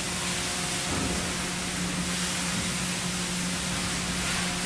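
Fire hose spraying a jet of water onto a ship's anchor chain to wash it down as it is hauled in, a continuous rushing hiss. A steady low hum runs underneath.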